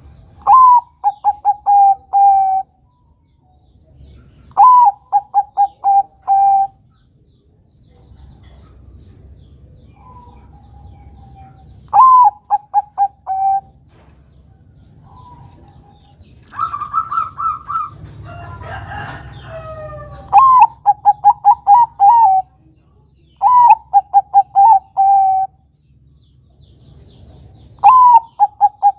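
Zebra dove (perkutut, Bangkok type) singing: each phrase opens with a rising note and runs into a quick string of short staccato coos, repeated every few seconds. A longer, rougher call stands out about two-thirds of the way through.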